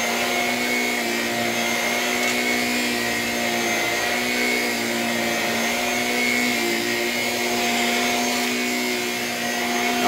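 Shark Rocket Apex stick vacuum with a self-cleaning brush roll head running steadily while vacuuming carpet: an even motor whine with several held tones.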